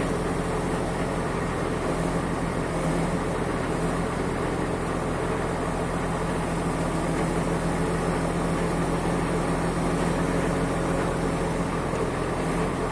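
Truck engine and hydraulic system running steadily as a truck-mounted HDS loader crane lowers a clamped pallet of blocks, a constant low drone.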